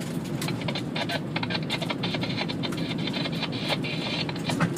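A car driving, with steady road and engine noise heard inside the cabin and scattered sharp ticks and taps throughout.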